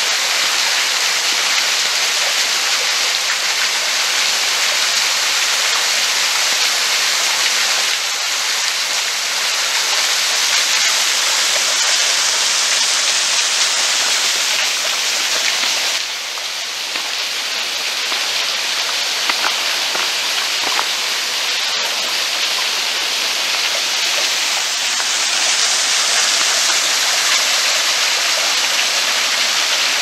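Small waterfall: shallow water running and splashing over a rock shelf in a steady, loud rush, dipping a little in level about halfway through.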